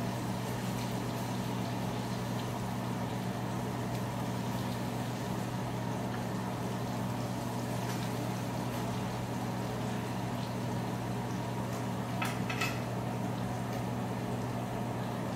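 Fish pieces and tortillas frying in a pan of oil and butter, under a steady low hum. A few light clicks come about twelve seconds in.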